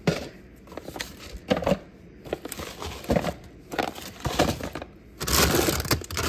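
Packages and containers knocking and clattering as someone rummages in a kitchen cupboard for a bag of rice, with a second or so of dense rustling near the end.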